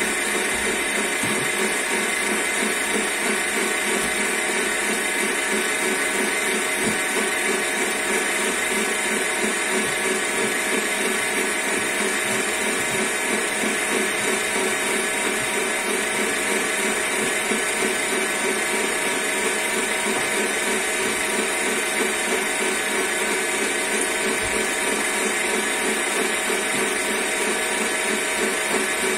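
Electric stand mixer running steadily, its beater whipping pastry cream in a stainless steel bowl toward stiff peaks: a constant motor whir with a steady whine.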